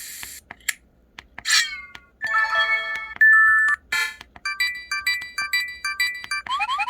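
Pantech SKY IM-S480 tilt phone playing its built-in sound effects through its speaker: a string of short electronic chimes and jingles, the folder-closing sound options, then from about four seconds in a quick run of beeping menu-navigation tones, ending in a fast series of rising chirps.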